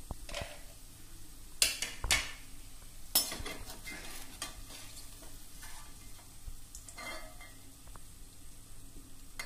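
Perforated steel skimmer scraping and clanking against a metal kadai while lifting fried boondi out of hot oil, with a few sharp clanks in the first three seconds and lighter scrapes after. The oil sizzles faintly underneath: the boondi is fried and being taken out.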